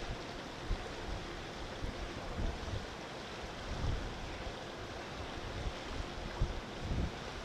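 Wind blowing across the microphone: a steady rushing noise with uneven low rumbles as gusts buffet it.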